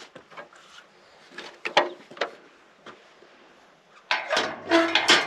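Knocks and rattles of steel carport framing tubes being handled and fitted together. There are a few sharp knocks in the first couple of seconds and a denser clatter near the end.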